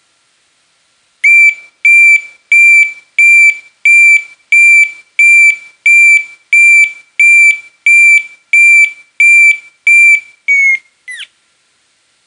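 DNI4029 piezoelectric reversing (back-up) siren beeping: a high single-tone beep repeated about one and a half times a second, roughly fifteen times. The last beep sags in pitch and the sound ends in a short falling chirp.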